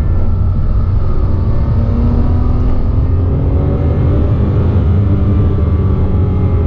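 2007 Porsche Cayman S's 3.4-litre flat-six running steadily on the road, heard from inside the cabin, with a high-pitched whistling whine that follows engine RPM. The whine comes from a worn water pump bearing.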